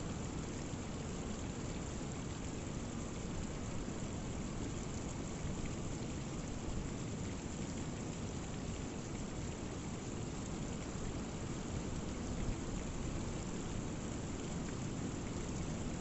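Rainwater running down a rock cliff face in thin falls after heavy rain, a steady hiss of water, with a rough sea low in the background.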